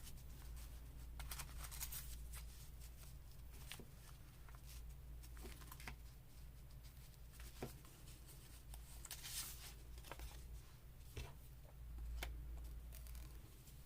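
Faint rustling and light taps of paper and card being handled and laid into place, in short scattered bits, with a steady low hum beneath.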